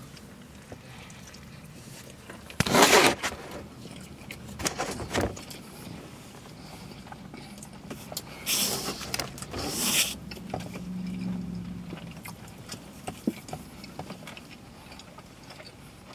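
Crinkling and rustling of a burrito's foil wrapper being unfolded and handled, in two loud bursts about three and nine seconds in, with smaller crackles between.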